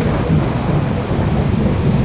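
Rolling thunder rumbling low and loud over steady heavy rain.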